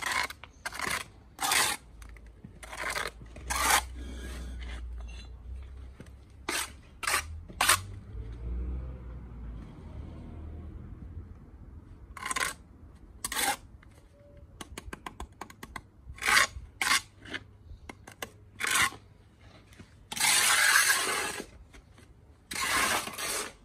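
Steel bricklaying trowel scraping and clinking on concrete blocks and wet mortar: a run of short, sharp scrapes and taps as excess mortar is cut off the joints, with one longer scrape about twenty seconds in as mortar is scooped off the mortar board.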